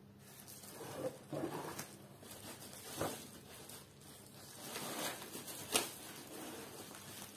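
Bubble wrap and cardboard packing being handled: irregular rustling and crinkling with a few sharper crackles, the loudest a little before the end.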